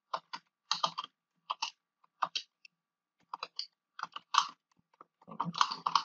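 Typing on a computer keyboard: irregular runs of keystroke clicks with short pauses, coming faster near the end.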